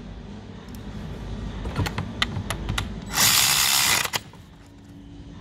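Ratchet wrench turning a spark plug socket on an extension to run a new spark plug in: a few separate clicks, then a short burst of rapid ratcheting about three seconds in.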